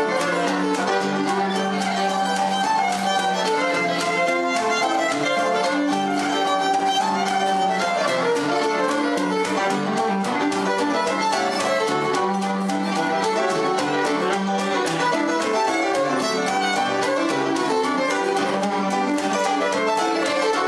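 Instrumental background music: sustained melody notes over a steady, quick rhythm.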